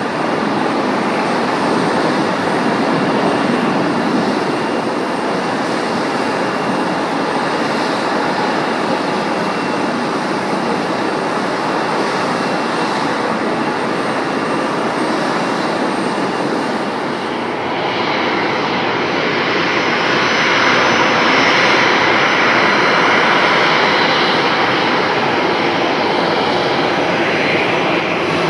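Jet airliner engines running, a loud steady rushing noise. About two-thirds of the way through it changes abruptly to a brighter, hissier engine sound.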